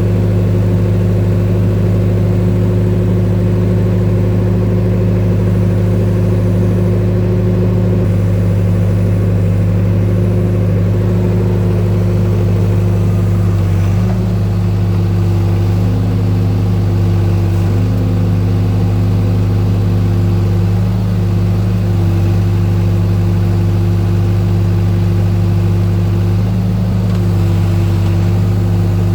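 Diesel engine of a New Holland tractor-loader-backhoe running steadily at constant speed while digging a trench. Its note shifts slightly a few times around the middle.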